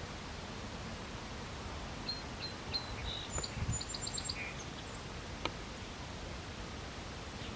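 A small songbird gives a series of short, high chirps and a quick run of notes over a steady outdoor hiss; a single sharp click comes near the middle.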